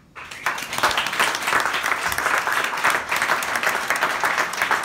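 Audience applauding, breaking out just after the start and going on steadily.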